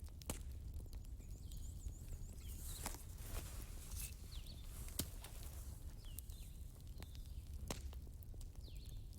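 Outdoor bonfire crackling and popping in irregular sharp snaps, with small birds chirping in short calls and a low steady rumble underneath.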